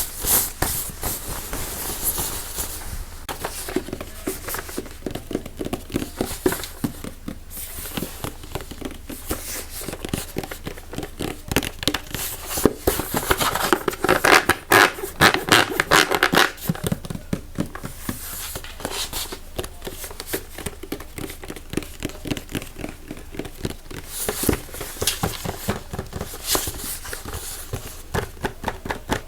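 ASMR triggers: rapid tapping, clicking and scratching on objects held close to the microphone, busier and louder about halfway through.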